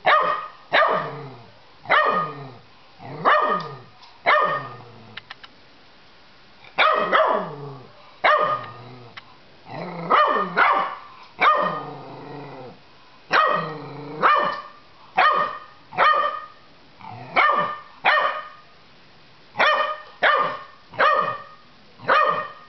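Puppy barking over and over, about one bark a second with a couple of short pauses, each bark dropping in pitch.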